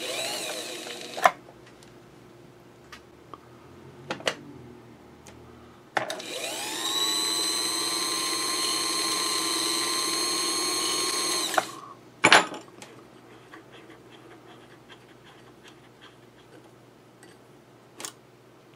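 Sewing machine motor (AlphaSew NA35) running the bobbin winder. About six seconds in it spins up with a rising whine, holds a steady whine for roughly five seconds, then stops suddenly. A sharp click follows shortly after, and there are a few light clicks before and after.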